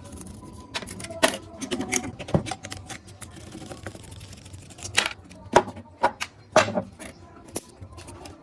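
Irregular metallic clinks and knocks, a handful of sharp strikes a second or more apart, as of hand tools working on the compressor's metal parts.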